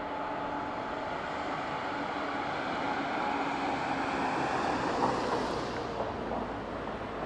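Airbus A321neo's CFM LEAP-1A turbofan engines on approach, growing louder to a peak about five seconds in and then easing off, with a faint whine slowly falling in pitch.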